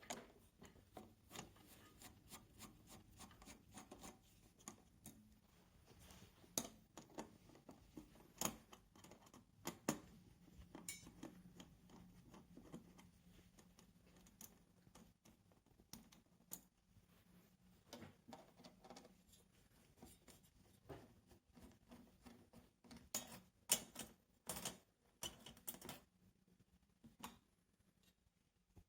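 Faint, irregular clicks, taps and short scrapes of hands and a tool working on a flat-screen TV's plastic and metal parts during disassembly, with a few louder clicks near the end.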